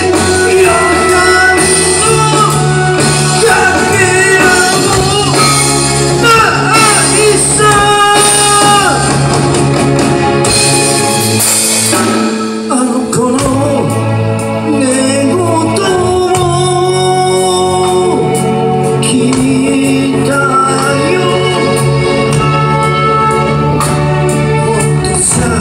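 Live band playing a slow rock ballad through a PA: a lead vocal over electric bass, drums and keyboard, with a brief lull about halfway through.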